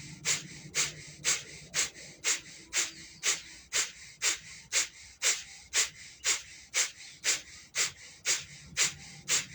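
Bhastrika (bellows breath) pranayama: rapid, forceful breaths through the nose in an even rhythm of about two strokes a second.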